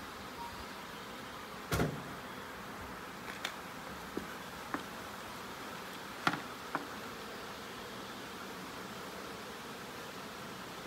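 Honey bee swarm buzzing steadily around a bucket, with a few sharp knocks and clicks over the first seven seconds, the loudest about two seconds in.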